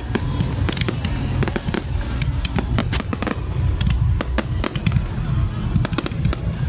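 Aerial fireworks bursting: a dense, irregular run of sharp bangs and crackles over a continuous low rumble.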